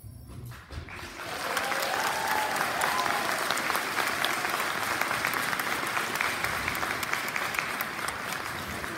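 Audience applauding, the clapping rising about a second in after a short lull, holding steady and easing off near the end.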